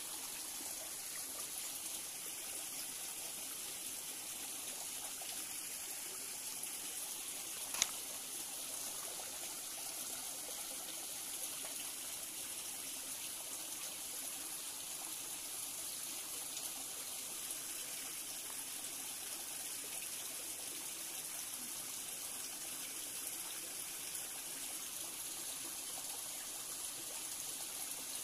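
Small rocky forest stream trickling steadily, with a single sharp click about eight seconds in.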